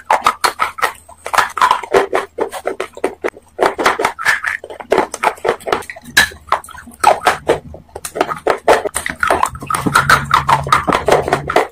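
Close-miked crunching and chewing of a hard, brittle chunk, with many sharp cracks in quick succession.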